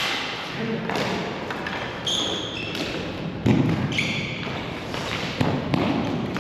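Ball hockey play in a large hall: sticks clacking against the ball and floor and shoes squeaking in short chirps, with a heavier thud about three and a half seconds in.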